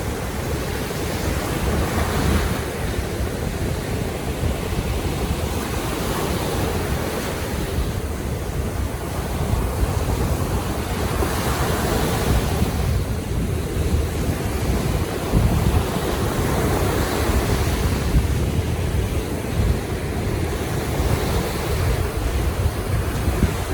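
Baltic Sea waves surging in swells every few seconds, with wind buffeting the microphone as a steady low rumble underneath.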